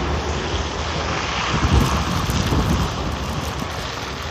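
Storm wind gusting across the microphone: a steady rushing noise with uneven low buffeting, loudest about two seconds in.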